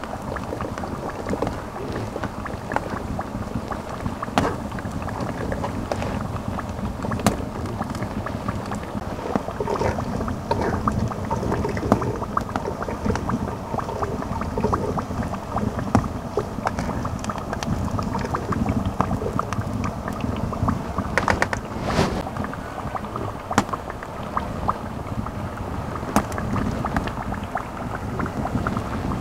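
Metal spoon scraping and tapping against a plastic strainer as it presses ground soybean pulp to strain out soy milk, in short irregular clicks over a steady rushing background noise.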